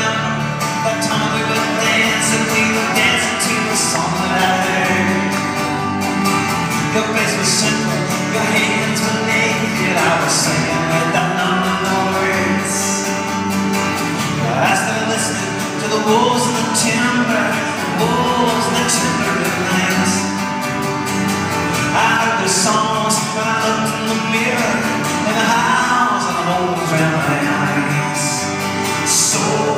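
Live folk-rock band playing a song: strummed acoustic guitar, hollow-body electric guitar and upright bass, with a male voice singing, heard from the audience in a large hall.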